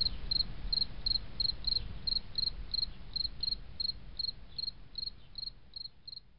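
A cricket chirping in a steady rhythm, about three chirps a second, each chirp a quick double pulse, over a faint low hiss; the chirps grow weaker near the end.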